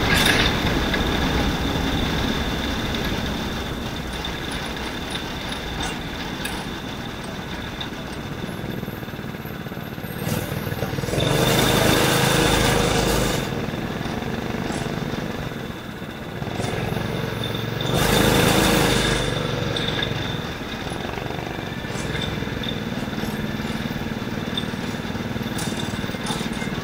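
Small racing kart engine running at race speed, heard from on board, with a steady high whine over it. It surges louder twice, once around the middle and again about two-thirds of the way through.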